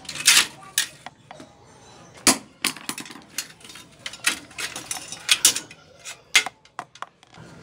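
Sharp, irregular metal clicks and clanks as pliers work on a rusty bicycle frame and a rusted mudguard is pulled free and rattles against it.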